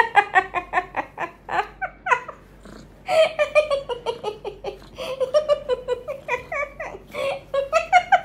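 A woman laughing in about four bursts of quick, high-pitched ha-ha pulses, each burst falling in pitch.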